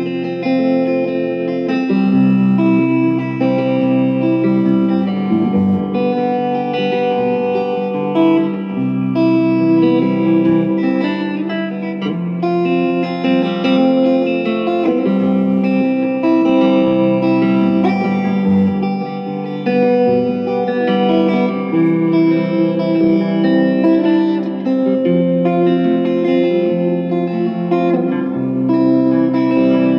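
Electric guitar played through a Fender Deluxe Reverb tube amp that has just been fitted with new Ruby power tubes and re-biased, being tried out. The guitar plays a continuous run of held chords and single notes, with no pauses.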